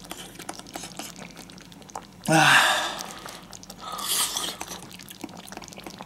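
A person eating hot food lets out a loud, breathy exhale with a short voiced start about two seconds in, and a shorter, softer breathy sound near four seconds. Faint chewing and mouth clicks run between them.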